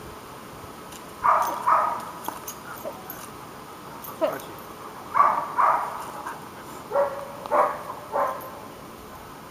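A dog barking: seven short barks in three groups of two or three.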